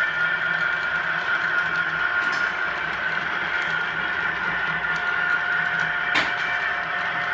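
Model railway Class 221 Voyager unit running out along the track: a steady electric motor whine with running noise from the wheels, and one sharp click about six seconds in.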